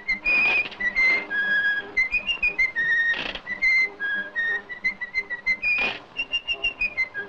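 A tune whistled in a run of short and held notes, some with a wavering vibrato, with a few brief bursts of noise between phrases.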